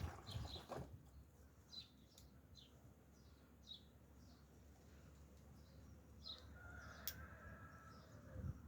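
Near silence with faint bird chirps: short, falling calls repeating every second or so. A single sharp click comes about seven seconds in.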